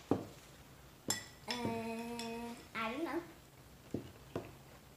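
A metal spoon clinks against a ceramic cereal bowl four times. Between the clinks, a child hums a steady 'hmm' for about a second, then makes a short vocal sound that bends up and down, thinking over an answer.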